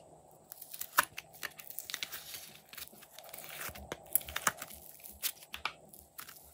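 A plastic slime tub being handled and thick green slime peeled out of it: scattered sharp clicks and crackles, with soft tearing sounds as the slime pulls away.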